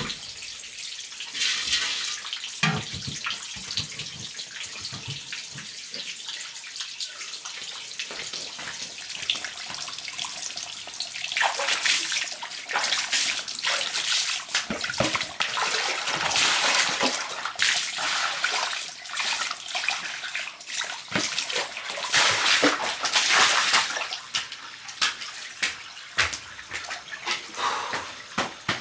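Water pouring and splashing, with scattered knocks and clatter of handling. It grows louder and fuller from about a third of the way in, then thins out to patchy splashes near the end.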